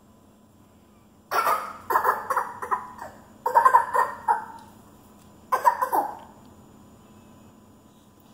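A toddler's short breathy laughs and grunts in four bursts.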